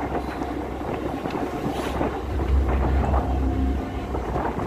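Mumbai suburban electric local train running, heard from on board as a steady low rumble, with wind buffeting the microphone.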